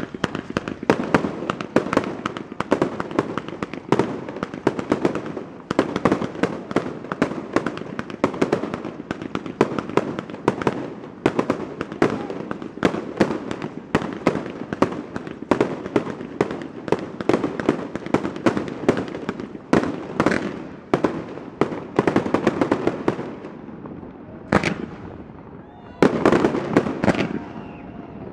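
Fireworks going off in a dense, continuous barrage of bangs and crackles, with a low rumble under them. The barrage thins out for a couple of seconds near the end, then picks up again in another heavy burst.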